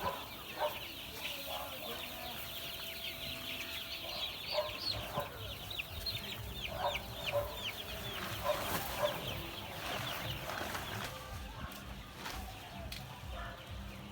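A flock of month-old chicks peeping without pause, many short high falling chirps overlapping, with scattered lower clucks beneath; the peeping thins out near the end.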